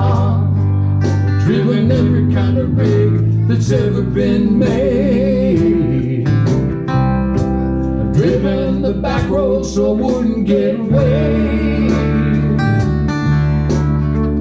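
Live band music: an electric guitar and a second guitar playing a song, with singing.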